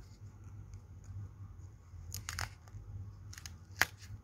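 Short rustling and crinkling handling noises about two seconds in and again a little later, and one sharp click near the end, over a low steady hum.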